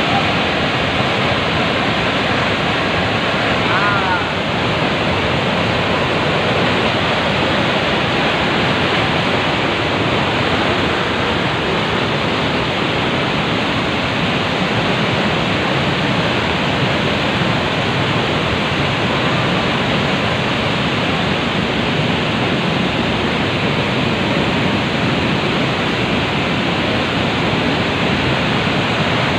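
Waterfall in spate: a torrent of muddy floodwater pouring over the falls and churning through the pool below, a steady, loud rush of water.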